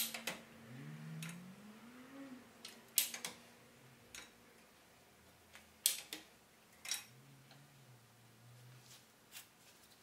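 Scattered sharp clicks and taps, about seven of them, as painting gear is handled, over a faint low hum that glides up in pitch about a second in.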